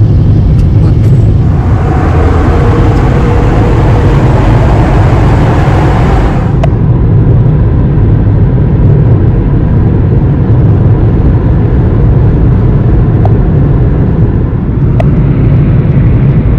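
Car driving on a highway, heard from inside the cabin: a steady low rumble of engine and tyres on the road. About two seconds in, a louder hiss joins for a few seconds and then stops abruptly.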